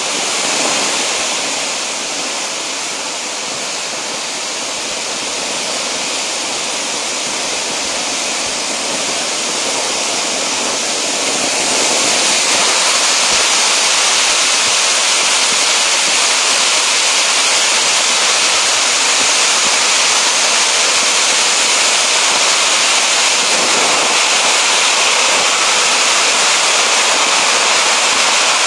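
Large half-dome ground fountain firework (a "big peacock" fountain) spraying sparks with a steady rushing hiss, growing louder about twelve seconds in and then holding steady.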